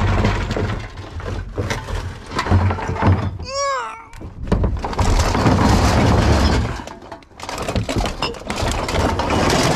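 Rubbish clattering and knocking as a bin's contents are tipped out, with a short high squeak about three and a half seconds in.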